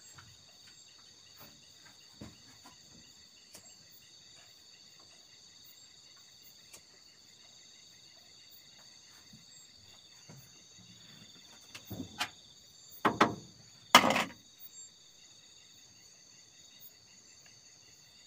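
Night insects, crickets among them, chirring steadily in several high pitches. About two-thirds through, a short run of knocks and rustling handling noise stands out as the loudest part.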